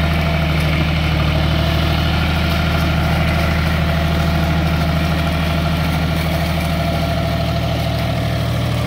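Tractor's diesel engine running steadily under load while the tractor works through deep mud in a flooded paddy field, with a fast, even engine pulse.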